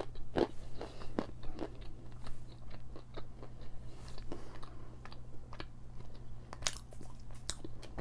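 A mouth chewing a piece of crunchy edible chalk up close: a run of irregular crisp crunches and clicks, a few louder than the rest.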